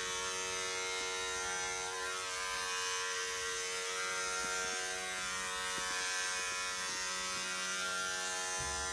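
Handheld electric shaver running against a buzzed scalp: a steady, even-pitched motor buzz that holds unchanged throughout.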